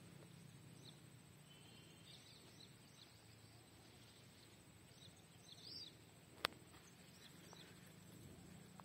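Near silence with faint, scattered bird chirps, and a single sharp click about six and a half seconds in.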